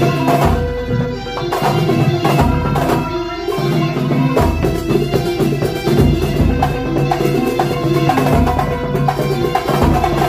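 Kuntulan dance music: a traditional percussion ensemble playing fast drum strikes over sustained melodic tones and a low bass line.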